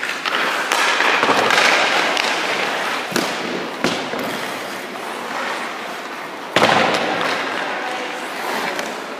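Hockey skate blades scraping and carving on rink ice, with two sharp knocks of stick and puck about three seconds in and just under a second later. A sudden, louder ice scrape comes about six and a half seconds in and fades away.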